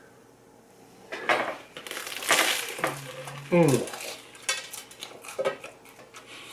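Eating and food-handling sounds at the table: a run of clicks and clinks like plate and utensils, with one louder rustling rush about two seconds in. A short low hum and a brief vocal murmur come around three seconds in.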